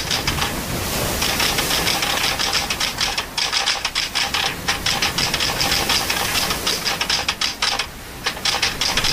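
Typewriter typing sound effect: a rapid, continuous run of keystroke clicks, with a short pause about half a second in and a brief lull near the end.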